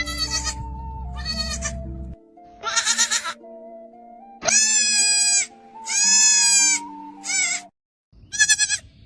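Young goat kid bleating again and again, about seven high bleats, two of them held for nearly a second, over background music.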